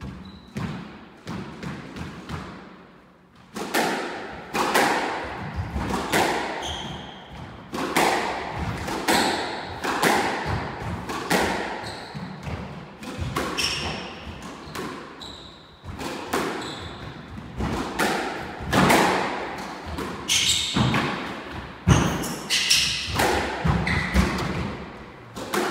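A squash rally: the ball cracks off rackets and walls about once a second, each hit echoing in the court. Shoes squeak sharply on the wooden floor between the hits.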